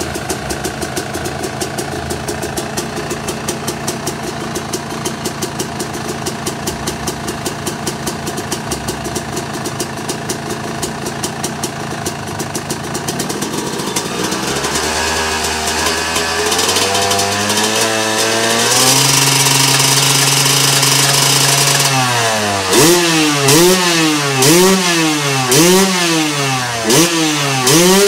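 2019 Yamaha YZ250X's 250 cc two-stroke single-cylinder engine idling with an even pulse, then its revs rise in steps and hold higher for a few seconds, then a run of quick throttle blips, about one a second, near the end. The bike's idle has been poor since sitting in the garage.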